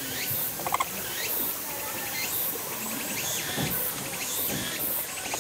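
Capybara eating from a person's hand, making wet sucking and smacking mouth sounds, with a quick run of sharp clicks about three-quarters of a second in.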